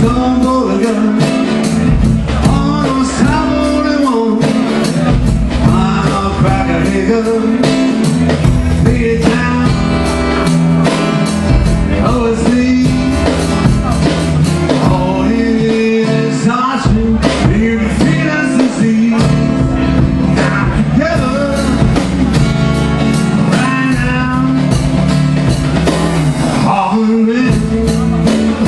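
Live acoustic blues band playing: an acoustic guitar with percussion keeping a steady beat, and a male voice singing over it.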